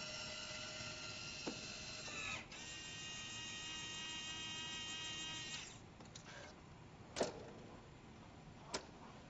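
Small electric drive whining with several steady high tones as the Mercedes ESF 2019's robot warning triangle is lowered from under the rear bumper; the whine shifts in pitch about two and a half seconds in and stops near six seconds. Two sharp clicks follow, about seven and nine seconds in.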